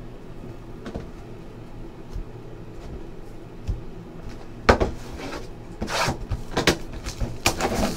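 Small cardboard trading-card boxes being handled, slid off a stack and set on a table. About halfway through a run of sharp knocks and scrapes begins, and the first knock is the loudest.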